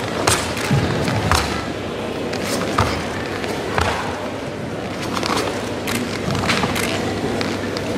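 Karate kata performed by one competitor: a string of sharp, irregularly spaced cracks from his gi snapping and feet striking the mat on fast techniques, over a steady murmur of the crowd in a large hall.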